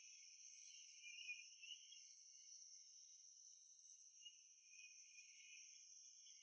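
Faint, steady, high-pitched insect chirping, crickets or similar, with nothing low-pitched underneath.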